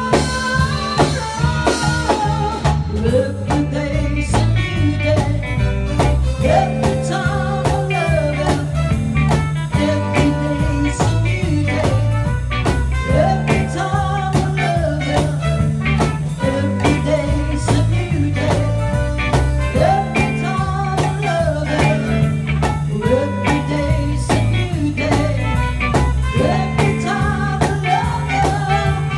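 Live band playing a song: a woman singing through a PA over electric guitars, keyboard and drum kit, with a trumpet.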